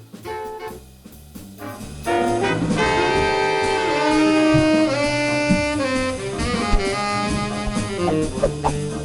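Jazz music with brass and drums, quiet at first and then coming in much louder about two seconds in.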